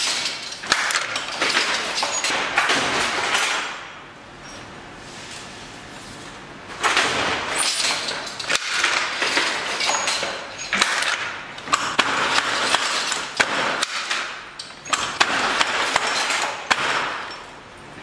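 A hand jacquard loom weaving silk velvet: its mechanism clatters and knocks, mixed with a rustling of the threads. This comes in four spells of about three seconds each, with short quieter gaps between.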